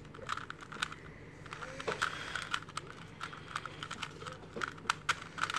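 Plastic 3x3 Rubik's Cube being turned layer by layer through a move sequence: a quick, irregular run of small clicks and clacks.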